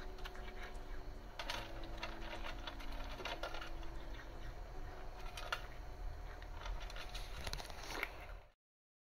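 A cat crunching dry food from a metal bowl, irregular sharp clicks over soft background music. Everything cuts off near the end.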